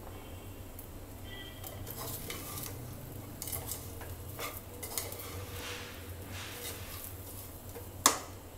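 Perforated steel skimmer spoon stirring dry broken wheat and vegetables in a pressure cooker: faint scraping with light clinks against the pot, and one sharper clink near the end.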